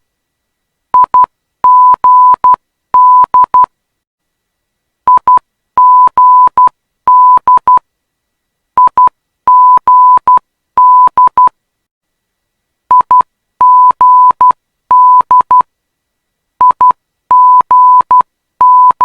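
Morse code identifier of the Perth runway 21 ILS localizer: a single steady beep tone keyed in dots and dashes. The same three-letter group, opening with two short dits, repeats about every four seconds, five times over.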